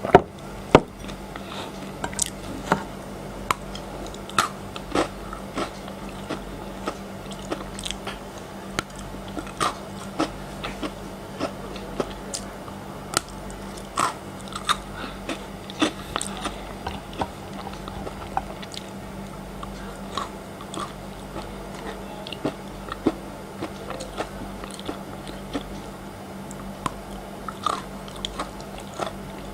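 Frozen chocolate bitten and chewed close to the microphone: sharp, irregular crunches and snaps, the two loudest right at the start, with a low steady hum underneath.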